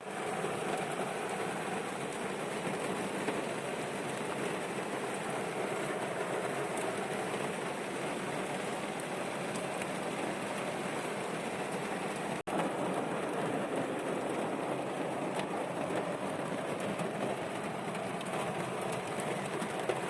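Steady rain falling, an even hiss with no let-up, briefly cut off about twelve seconds in.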